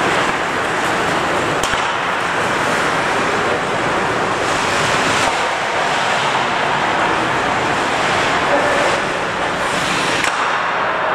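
Steady loud rush of hockey rink noise, skates scraping across the ice, with two sharp clacks of stick or puck, one about two seconds in and one near the end.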